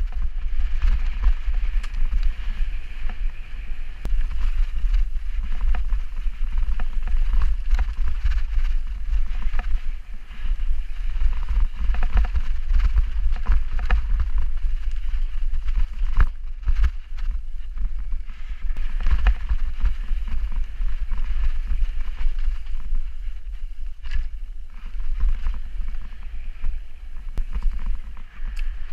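Mountain bike descending a muddy forest trail: a heavy wind rumble on the microphone, with tyre noise and many short clatters and knocks as the bike rattles over bumps and roots.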